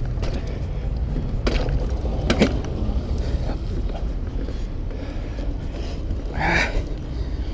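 Caloi Velox 29-inch bicycle being ridden over pavement: wind rumbles on the microphone and the tyres and frame rattle. Two sharp knocks come about one and a half and two and a half seconds in, and a short hiss near the end.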